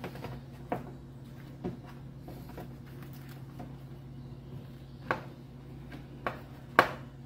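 Plastic cling film being stretched over an aluminium tray and pressed down around its edges: a handful of separate sharp crackles and light knocks, the loudest near the end, over a steady low hum.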